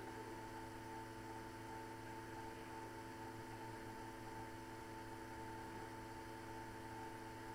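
Steady electrical hum and hiss with a high steady whine above it; nothing else.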